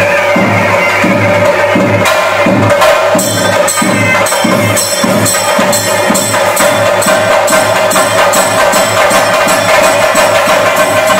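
Chenda drums beating a driving rhythm with small hand cymbals clashing along, the strokes quickening from about two a second to over three a second a few seconds in, over a steady held tone. This is the temple percussion that accompanies a Theyyam ritual.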